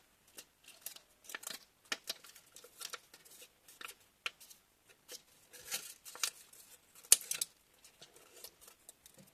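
Sheet of paper being handled and cut with scissors: irregular crisp snips and rustles, the sharpest about seven seconds in.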